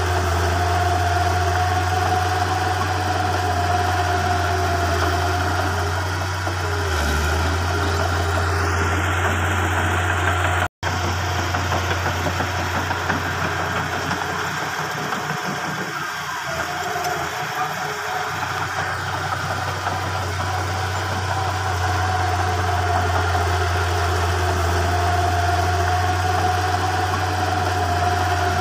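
Diesel engine of a small Komatsu crawler bulldozer running steadily as it pushes dirt, a constant low hum with a higher drone over it. The sound cuts out for an instant about eleven seconds in.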